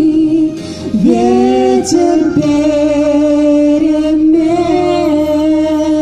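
A woman and a man singing a duet over an instrumental backing track, drawing out long held notes as the song closes.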